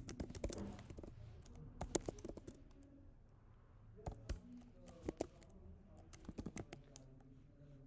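Computer keyboard being typed on in short irregular runs of keystrokes, faint.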